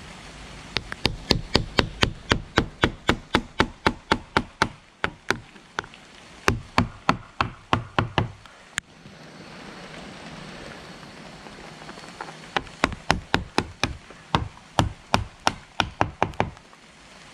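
Claw hammer driving waterproof roofing nails through an Ondura ridge cap into the shed's wooden ridge: two runs of quick, even strikes, about four a second, with a pause of about four seconds between them.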